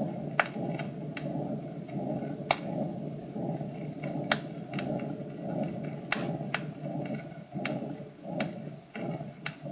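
Heart sounds recorded through a stethoscope: a rough heart murmur that runs with little or no pause and swells and fades with each beat, with sharp clicks of the heart sounds scattered through it.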